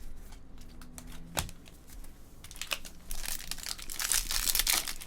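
A few light clicks of trading cards being handled, then, from about halfway in, a foil trading-card pack crinkling and tearing open, growing louder.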